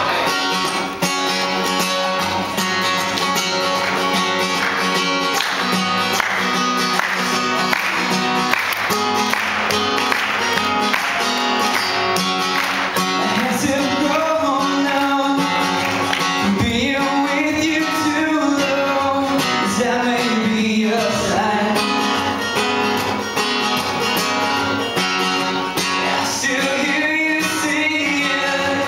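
Acoustic guitar being strummed in a steady rhythm, with a male voice singing along from about halfway through.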